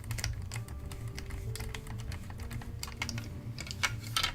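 Irregular light clicks and taps of small plastic kit parts, screws and a screwdriver being handled on a workbench, with a louder few clicks near the end.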